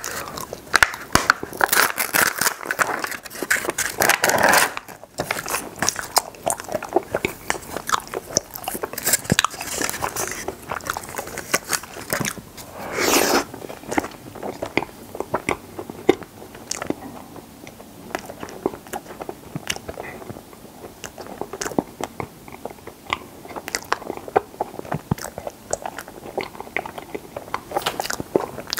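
Close-miked biting and chewing of strawberry mochi ice cream (chaltteok ice): a dense run of short wet clicks and smacks, busiest in the first few seconds, with a louder burst about 13 seconds in.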